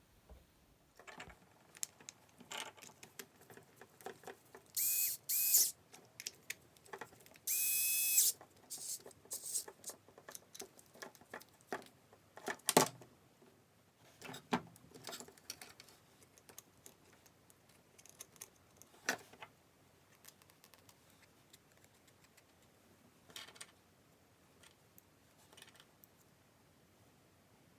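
Clicks and knocks of small tool parts being handled, with a small power tool run in three short bursts of steady whirring: two quick ones about five seconds in and a slightly longer one about eight seconds in.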